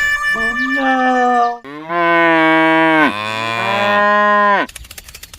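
Cattle mooing: several long, drawn-out moos, some overlapping, then a faint fast clicking near the end.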